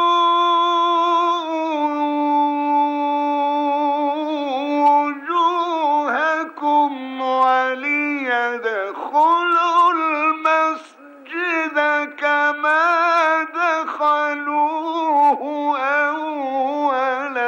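A male Quran reciter chanting in the melodic mujawwad style. He holds one long note for the first few seconds, then moves through ornamented melodic runs.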